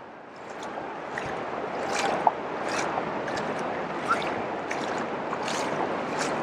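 Shallow ocean surf washing up over wet sand: a steady fizzing hiss of water that builds over the first couple of seconds, with short crisp splashy ticks repeating about every 0.7 seconds.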